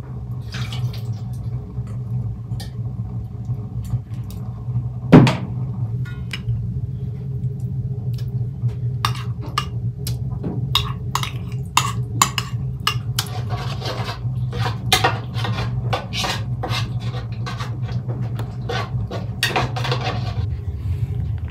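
Glass bowl clinking and scraping against a large enamel basin, with many short clinks and knocks that come thickest in the second half, and one loud knock about five seconds in. A steady low hum runs underneath.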